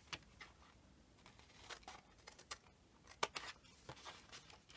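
Scissors cutting card, a few faint, short snips spread through a few seconds.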